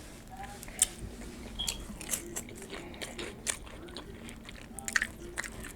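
Someone chewing a mouthful of nacho chips, with irregular crisp crunches as they break between the teeth; the sharpest crunches come about a second in and again near the end.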